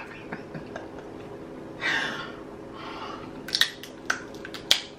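Close-up eating sounds: chewing and biting into a snow crab leg, with a few sharp cracks from the shell in the second half.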